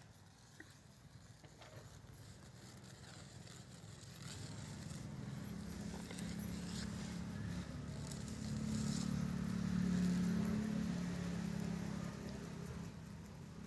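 Low engine hum that slowly grows louder, peaks about ten seconds in, then fades, as a vehicle going by.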